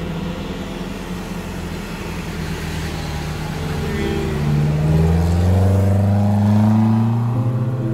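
Engine of an off-road Suzuki Jimny accelerating past close by, rising in pitch and loudest about five to seven seconds in, over a steady engine drone.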